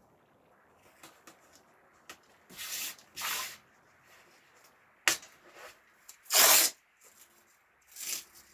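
Masking tape being pulled off the roll and laid along a board's edge: a series of short tearing rasps, with a sharp click about five seconds in and the loudest rasp a little after six seconds.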